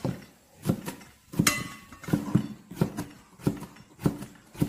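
A cleaver slicing preserved mustard greens on a plastic cutting board: the blade knocks against the board about eight times, a little under two knocks a second.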